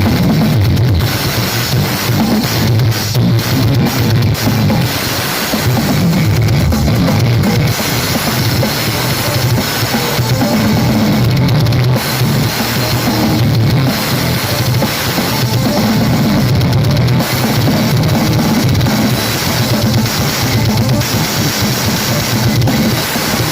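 Music with drum kit, bass drum and cymbals, played loud through a rental 'horeg' sound system, with heavy bass.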